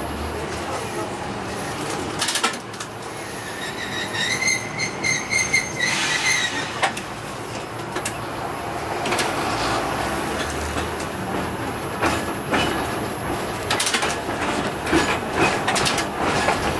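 Streetcar running on in-street track, heard from inside the driver's cab: a steady rolling rumble with sharp wheel knocks over rail joints and crossings. A high wheel squeal rises from the rails a few seconds in and lasts about three seconds.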